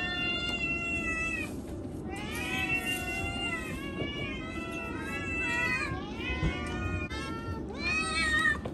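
House cats meowing: a run of long, drawn-out meows, one after another, each lasting a second or more.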